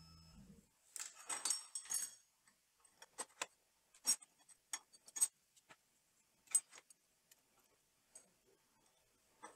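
Metal tools and a router bit clinking and clicking at the router collet as the bit is fitted: a quick flurry of clicks about a second in, then scattered sharp metallic clinks. A low hum from the router lift stops about half a second in.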